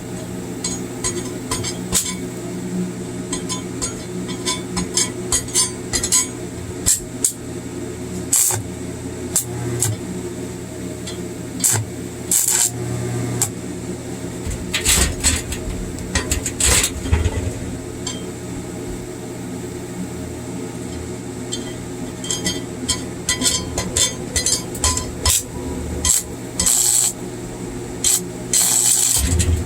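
Stick welding with a 7018 rod: the arc crackles and pops in irregular clusters over the steady hum of the arc welder.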